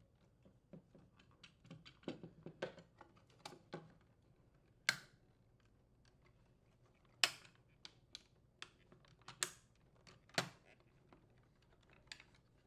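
Light plastic clicks and taps from handling a refrigerator ice-maker solenoid bracket cover, with four sharper snaps as it is pressed into place.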